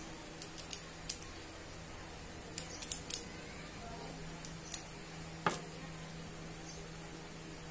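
Light clicks and taps of small metal drill parts knocking against each other and a plastic tub as they are handled, about a dozen in irregular clusters, over a steady low hum.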